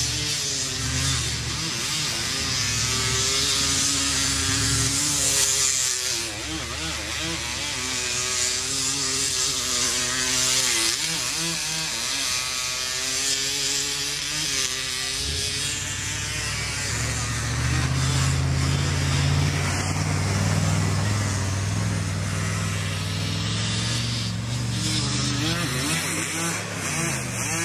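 Quad ATV fitted with snow tracks and front skis, its engine revving up and down as it rides through snow. In the second half a deeper, steadier engine note takes over.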